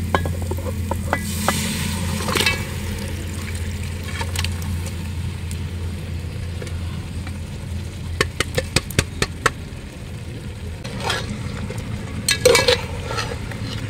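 Parboiled beef and its cooking liquid going into hot oil and fried masala in a large metal pot, sizzling as it goes in near the start, then stirred with a perforated metal ladle that knocks and scrapes against the pot in a quick run of clicks about eight seconds in and again near the end.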